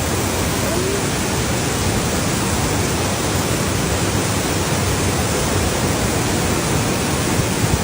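Typhoon wind and heavy rain: a loud, steady roar of noise with no distinct events.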